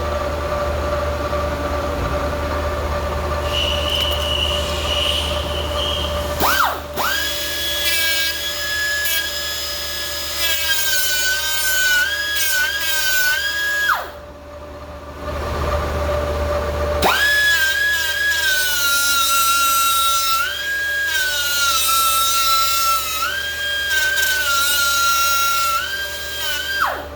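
Lathe running with a steady motor hum, with two long spells of a high, wavering whine, about seven seconds in and again from about seventeen seconds, as a cut is taken; there is a brief quieter gap between them.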